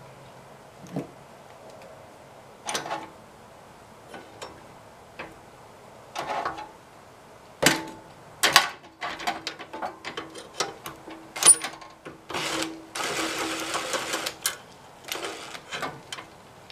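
Metal parts and hand tools clinking and knocking on a rototiller's pulley bracket. A socket ratchet clicks rapidly for about a second and a half near the end.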